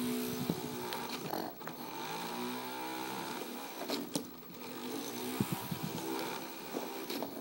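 Small electric motors of a toy remote-control helicopter whining as its rotors spin. The pitch dips and rises as the throttle changes, with a few sharp knocks.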